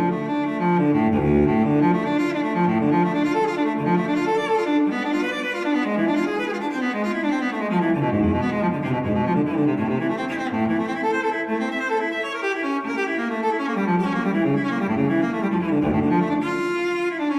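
Solo cello music: a bowed cello playing a slow melody with long held notes.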